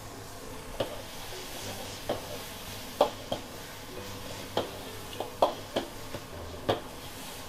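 Metal ladle and spatula clanking and scraping against a wok as noodles and vegetables are stir-fried over a gas burner, about nine sharp, irregular clanks over a steady sizzling hiss.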